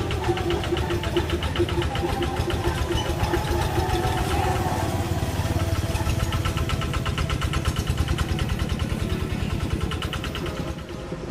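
Single-cylinder diesel engine of a two-wheel hand tractor running, with rapid, even firing beats. It drops slightly in level just before the end.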